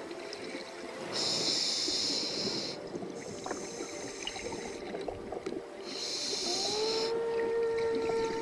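Scuba diver breathing through a demand regulator underwater, with hissing inhalations and bubbly noise between them. Late on, a steady humming tone comes in, rises slightly and holds.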